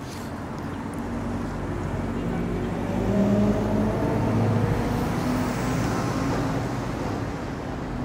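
City road traffic: a motor vehicle's engine grows louder as it passes, loudest about three to five seconds in, then eases off over the general traffic noise.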